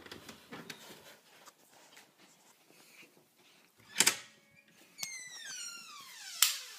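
A loud knock about four seconds in, then a door hinge creaking in one long squeak that falls steadily in pitch for nearly two seconds, with a sharp bang near the end.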